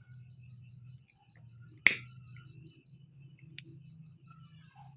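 Crickets chirping steadily in a fast, even pulse of about five chirps a second, with one sharp click a little under two seconds in.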